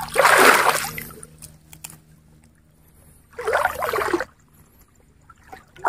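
Water splashing and sloshing twice, once right at the start and again about three and a half seconds in, as someone wades and works a fishing net in shallow water.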